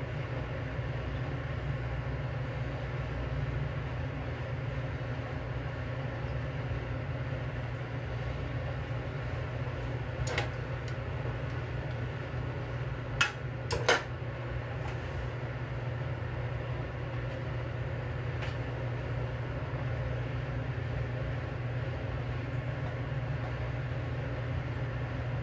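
Steady low rumble of a lit gas stove burner heating an aluminium saucepan of water. Three sharp clinks break it, one about ten seconds in and two close together a few seconds later.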